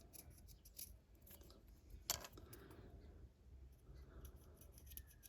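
Faint small clicks and scrapes of a hobby knife cleaning up small plastic model parts cut from the sprue, with one sharper click about two seconds in.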